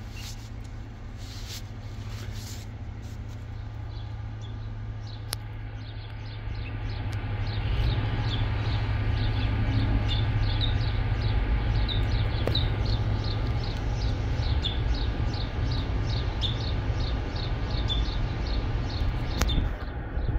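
Outdoor background sound: a low rumble that swells about seven seconds in and stays loud, with a high chirp repeated about two or three times a second over it.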